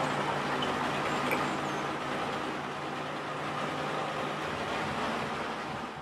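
Engine of a 1969 Bedford 4x4 truck running steadily with a low hum as it lifts a log out of the pile.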